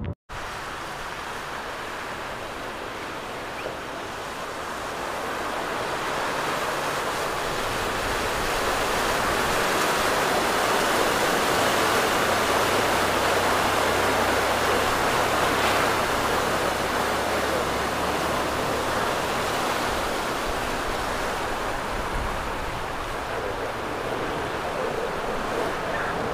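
A Jeep Wrangler driving through deep floodwater, its tyres throwing up a steady rush of spray. The rush swells to a peak as the Jeep passes and then slowly eases, with a low engine hum under it at the loudest point.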